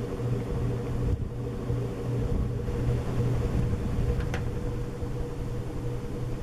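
1980s Sanyo ceiling fan running with a steady motor hum and low rumble. A single short click sounds about two-thirds of the way through.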